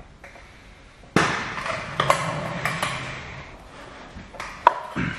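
Handling noises at the bumper during the film installation. A sudden rustle about a second in fades over a couple of seconds, followed by several sharp taps and clicks, the loudest near the end.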